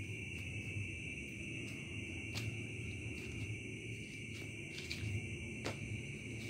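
Crickets trilling steadily in the background over a low hum, with two faint clicks, one a little past two seconds in and one near the end.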